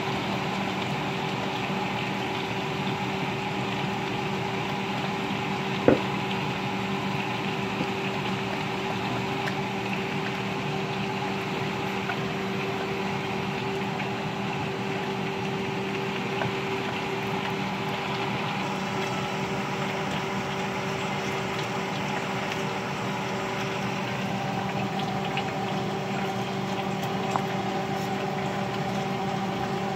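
Steady machine hum with an even hiss underneath, and a single sharp click about six seconds in.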